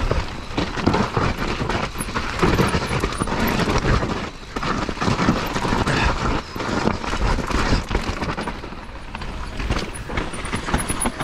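Mountain bike riding fast down a rough dirt trail: tyres rumbling and crunching over roots and ruts, with a dense, uneven clatter of knocks and rattles from the bike over the bumps.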